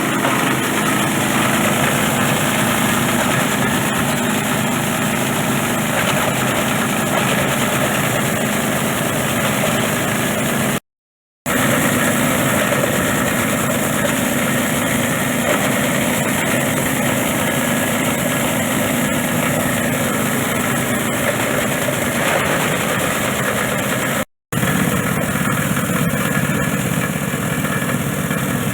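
Plastic bottle shredder machine running steadily with a dense mechanical drone. The sound drops out completely twice, briefly.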